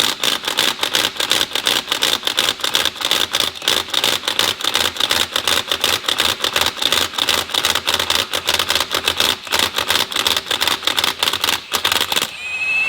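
Cordless impact wrench hammering in reverse on a wheel loader's lug nut, a rapid, steady clatter of blows that stops near the end, followed by a short rising whine. The wrench seems to lack power in reverse, which the owner cannot explain with a fully charged battery.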